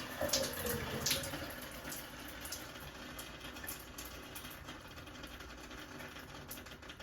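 Water from a shower that has just been shut off at a freshly replaced Delta valve cartridge, the flow dying away and fading. A few sharp ticks sound through it, the loudest about a second in.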